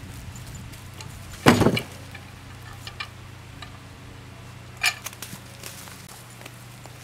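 A white ash log being rolled with a log cant hook on a bandsaw mill's steel bed. About one and a half seconds in there is a loud, short clattering thud as the log shifts on the bunks, then a sharp clink near five seconds, with a few small knocks between.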